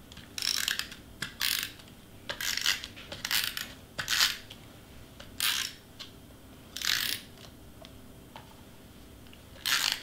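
Handheld Tombow adhesive roller (tape runner) pulled across cardstock in about eight short strokes, each a brief rasp with the clicking of its tape spool, at irregular intervals.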